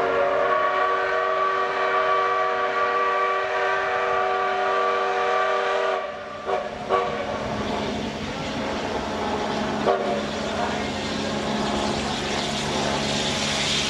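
JNR Class D51 steam locomotive's steam whistle sounding one long chord-like blast for about six seconds as it runs into the station, cut off sharply. After it comes the steady running noise of the approaching train, with a few short sharp clicks.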